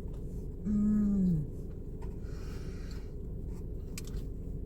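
A woman's closed-mouth "mmm" hum of enjoyment about a second in, falling in pitch at its end, while she eats spicy fried chicken. It is followed by soft chewing and a few small clicks over a steady low background hum.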